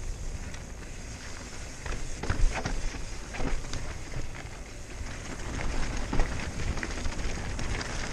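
Rocky Mountain Slayer full-suspension mountain bike rolling downhill over a dirt and loose-rock trail: tyres crunching over stones, with frequent sharp clicks and rattles from the bike that grow busier after about two seconds. Low wind rumble on the helmet microphone runs underneath.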